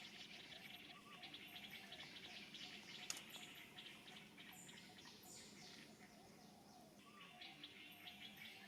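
Faint outdoor birdsong: rapid high chirps repeating through, with one sharp click about three seconds in.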